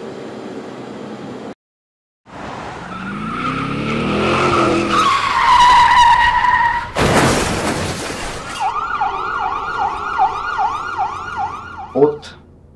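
Car crash sequence: a car engine revving up in pitch, tyres screeching, then a loud crash about seven seconds in. After it an emergency-vehicle siren wails in fast rises and falls, about three a second, and cuts off suddenly near the end.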